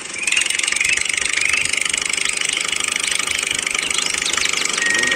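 Miniature toy tractor running as it drives off: a steady, rapid engine-like chatter, thin and high in pitch.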